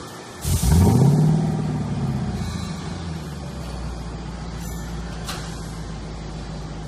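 Lexus LC 500's naturally aspirated V8 starting through a Fi Exhaust aftermarket exhaust: it fires about half a second in, the revs flare up sharply and then drop over a couple of seconds, settling into a steady idle.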